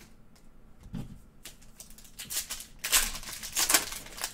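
Foil trading-card pack wrapper crinkling and tearing as it is pulled open, in a close cluster of sharp crackles from about two seconds in. A soft thump about a second in.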